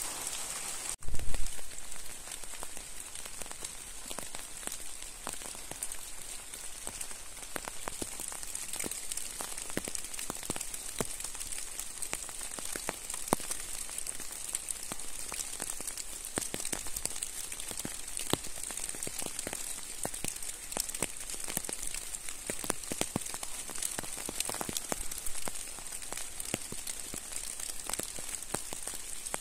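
Steady rain hissing, with scattered drops ticking sharply on a hard surface. A short thump about a second in.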